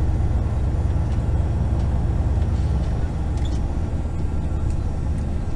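Semi truck's diesel engine running as the truck rolls slowly, heard from inside the cab as a steady low rumble.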